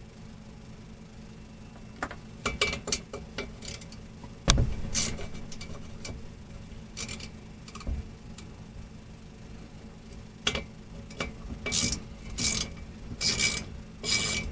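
Hand tools loosening and removing the nuts and bolts around a Ford Model A klaxon horn's vibrating plate: scattered metallic clicks, one loud knock about four and a half seconds in, then a run of short rasping strokes near the end.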